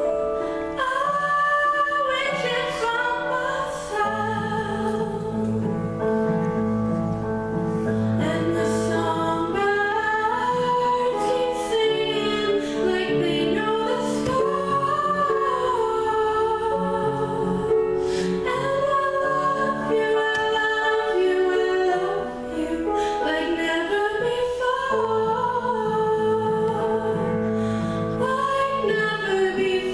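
A woman singing with piano accompaniment; fuller low accompaniment comes in about four seconds in.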